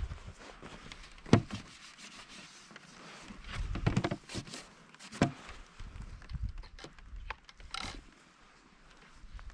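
Scattered knocks and thumps, the loudest a single sharp thunk about a second and a half in, with a low rumbling cluster of knocks around four seconds.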